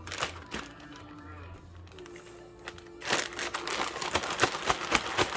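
Soft background music, then, about three seconds in, loud crinkling and rustling of a plastic gallon zip-top bag being handled with the chicken pieces and cornstarch inside.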